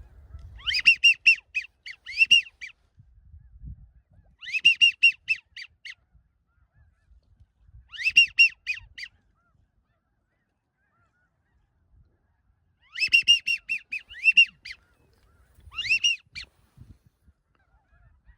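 Goose calling in five bursts, each a quick run of high, yelping notes, in the style of white-fronted geese (specks). The bursts are very loud and close, as from a hunter's hand-blown speck call rather than distant birds.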